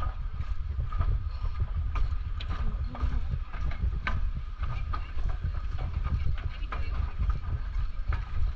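Footsteps on the wooden deck of a footbridge, clicks at about two a second at a walking pace, over a steady low rumble.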